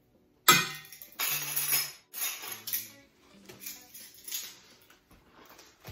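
A metal spoon clinks sharply against a stainless steel mixing bowl about half a second in. Several short scraping, rustling bursts follow as spices are spooned into the vinegar sauce and stirred. Quiet acoustic guitar background music plays throughout.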